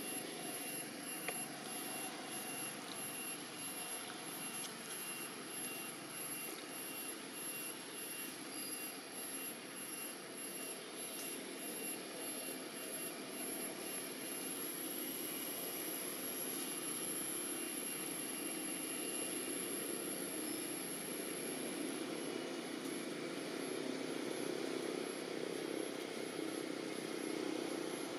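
Steady outdoor background noise: an even hiss with a thin, high whine that pulses in the first half and holds steady from about halfway through.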